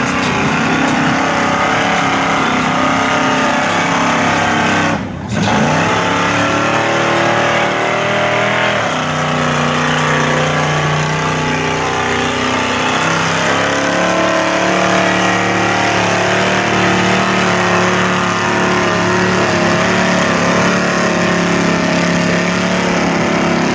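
Engine of a big-tyred off-road mud vehicle revving hard under load as it churns through deep mud, its pitch wavering and stepping up. There is a brief dip about five seconds in.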